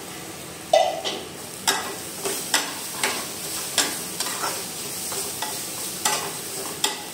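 Metal spatula scraping and knocking against a metal kadhai as diced vegetables are stirred to mix in spice powders, over a steady sizzle of frying. The strokes begin about a second in and come irregularly, roughly two a second.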